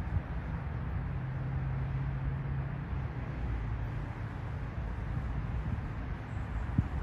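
Amtrak Coast Starlight passenger cars rolling past as a steady low rumble, with a faint hum for a couple of seconds, as the tail of the train goes by.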